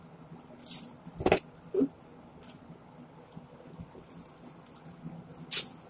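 Plastic shopping bag crinkling in short bursts as fish guts are dropped into it, with a sharp knock about a second in and the loudest crinkle near the end.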